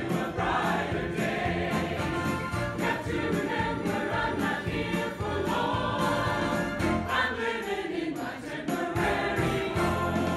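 Church choir of men and women singing together in parts.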